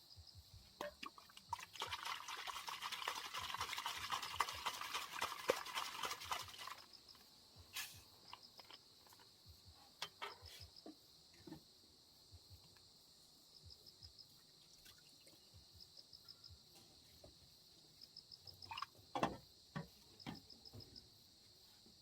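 Crickets chirping steadily with short repeated trills. For about five seconds near the start a dense rustling, crackling noise covers them, and scattered clicks and knocks follow, with a cluster near the end.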